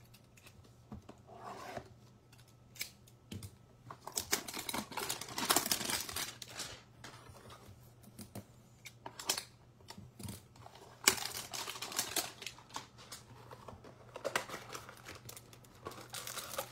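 Cardboard trading-card hanger box (Topps Series 1 baseball) being handled and torn open. Several bursts of tearing and rustling card stock, the longest a few seconds in, another a little past the middle and one near the end, with scattered small clicks between.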